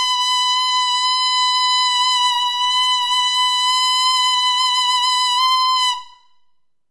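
Clarinet mouthpiece with its reed blown on its own, without the rest of the clarinet: one long, high, thin note held steady, stopping abruptly about six seconds in. A mouthpiece alone gives only this single high pitch, which doesn't sound that good.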